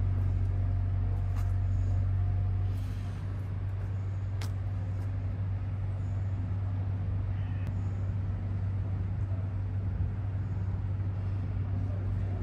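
A steady low engine hum that eases a little about three seconds in, with a few faint clicks over it.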